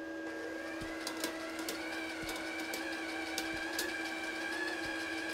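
The Vevor MIG-145's wire-feed motor and drive rollers whining as they push flux-core wire through the torch lead with the trigger held. The whine rises in pitch as the motor spins up about a quarter second in, then runs steadily with scattered light ticks, over a steady low hum.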